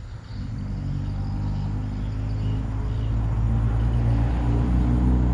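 Low engine rumble of a motor vehicle passing on a road, growing steadily louder.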